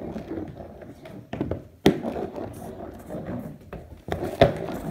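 Heelys wheeled shoes rolling and stepping on a hardwood floor, a low rumble broken by two sharp knocks of the shoes on the wood, one about two seconds in and a louder one near the end.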